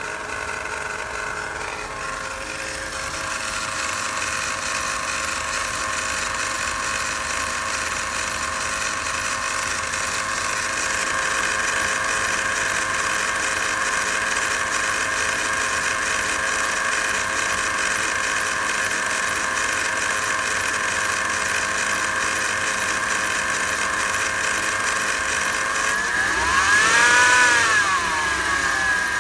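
Mercedes M273 V8 idling with a fast, high-pitched chatter on top of the engine note, a fault the owner later traced to worn accessory-belt idler pulleys. Near the end the engine is revved once, its pitch rising and falling over about two seconds.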